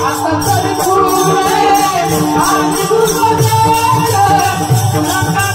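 Marathi Warkari devotional singing: a high, wavering voice carries the melody over a steady held accompaniment, with a drum and jingling cymbal strokes keeping an even beat.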